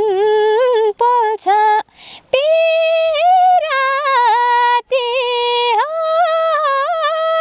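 A girl singing a Nepali song solo without accompaniment, in long held notes that bend and waver, with brief breaths between phrases.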